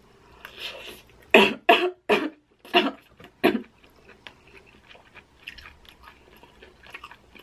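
A woman gives five short, forceful coughs or huffs out of her mouth over about two seconds while she has a mouthful of hot, cheesy food, then chews softly.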